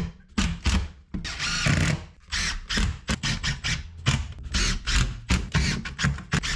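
Cordless drill run in short bursts, drilling into a new mahogany board, with several sharp bursts a second and one longer run about a second and a half in.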